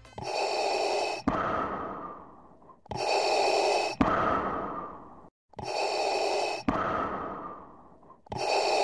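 Heavy breathing in an even rhythm: a hissing inhale about a second long ending in a sharp click, then a fading exhale, repeating about every three seconds.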